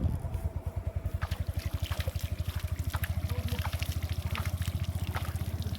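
A small engine running steadily with a rapid, even low thumping, while water trickles and splashes.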